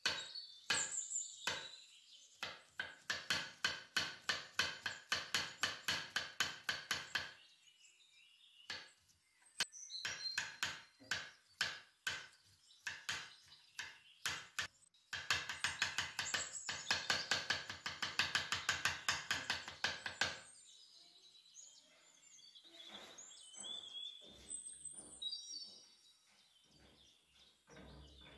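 Chef's knife chopping garlic directly on a stone countertop: rapid, even blade strikes, about four a second, in two long runs with a pause between. Near the end it gives way to a few scattered, quieter knocks.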